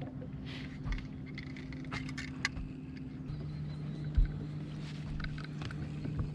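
Boat motor humming steadily, its tone shifting lower about three seconds in, with scattered clicks and a sharp knock about four seconds in.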